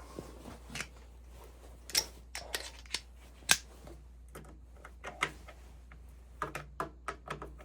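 Irregular sharp clicks and knocks of tools and metal parts being handled while reassembling an oil burner, with a quick run of small clicks near the end.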